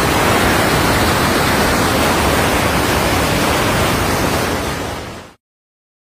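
Muddy floodwater of a swollen river rushing in a steady torrent. The sound fades and cuts off about five seconds in.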